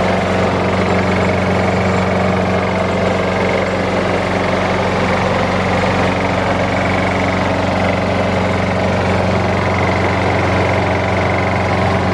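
Briggs & Stratton 700-series single-cylinder lawn mower engine running steadily at a constant speed.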